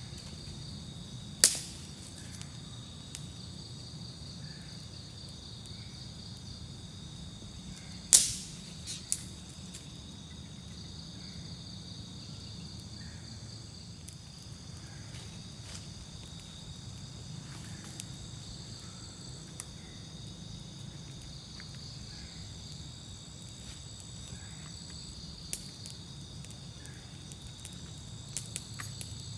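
Night insect chorus: steady high-pitched trilling throughout, over a low steady rumble. Two sharp clicks stand out, about a second and a half in and about eight seconds in, with a few fainter ticks.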